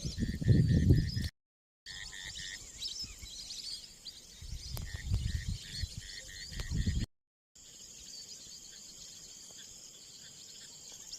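Forest ambience: a steady high-pitched insect drone with scattered bird chirps and a short call repeating about four to five times a second. A low rumble on the microphone covers the first second and again from about the middle to near two-thirds through. The sound cuts out briefly twice.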